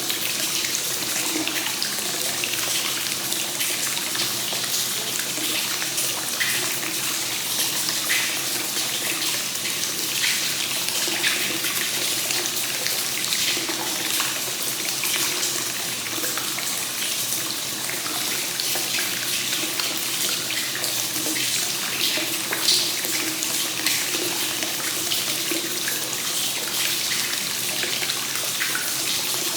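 Hot spring water pouring steadily from the inflow into a bath, a continuous splashing flow with small droplet splashes scattered through it.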